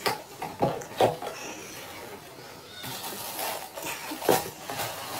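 Cardboard shoebox being opened and handled: a few sharp knocks of the lid and box, with rustling of the paper around the shoes in between.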